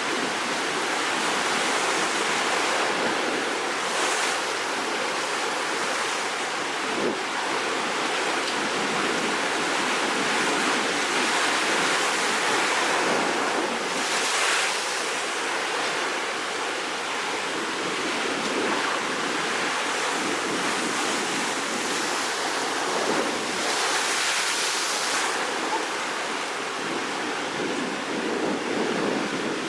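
Rough sea surf stirred up ahead of a typhoon: waves break and wash continuously, and a few louder breakers crash through, the clearest about 4, 14 and 24 seconds in.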